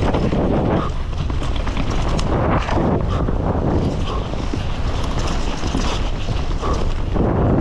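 A downhill mountain bike ridden fast down a dry dirt trail: tyres on dirt and the bike's chain and suspension rattling, with repeated knocks over bumps, all under heavy wind rumble on the microphone.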